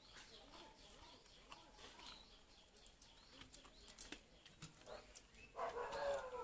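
Faint bird calls over scattered soft mouth clicks of eating rice and curry, with a louder call near the end.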